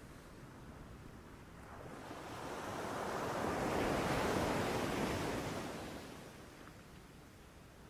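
Ocean surf: one wave's rush of water builds from about two seconds in, peaks midway and washes back out.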